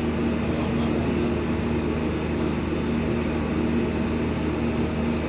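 Steady mechanical hum of a running machine, even and unbroken.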